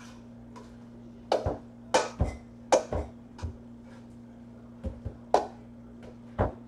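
Kitchen utensils and dishes knocking and clinking at the counter: about ten sharp knocks in irregular clusters, over a low steady hum.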